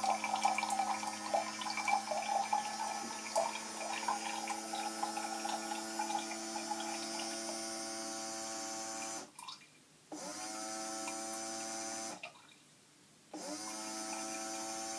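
Small electric water pump humming steadily while water trickles and drips into a model steam engine's water tank, the splashing fading after several seconds. The hum cuts out twice for about a second and starts up again each time, as the feed is switched off and back on.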